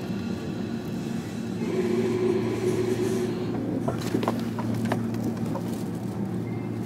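Inside a JR Kyushu 305 series electric train car: a steady low hum and rumble, a little louder from about two seconds in, with a few short clicks around four to five seconds.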